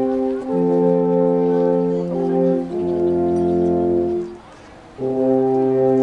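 Three alphorns playing together in long held chords, the notes changing every second or two, with a short break about four and a half seconds in before the next chord sounds.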